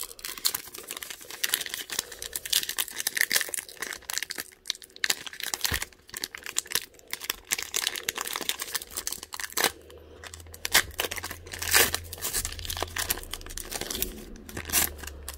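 Crinkling and tearing of a 2021 Topps Gypsy Queen baseball card pack wrapper being ripped open by hand, in many irregular crackles. The wrapper is tearing raggedly rather than opening cleanly.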